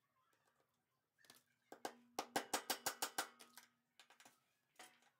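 Quick run of small metal clicks as a bolt is tightened at the foot of a steel sewing-machine stand leg with a hand tool, about six a second for a couple of seconds, with a faint steady hum underneath and a few softer ticks after.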